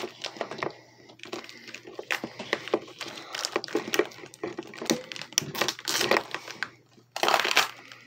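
Duct tape crinkling and crackling as it is pressed and wrapped by hand around a power strip, with a louder ripping burst of about half a second near the end.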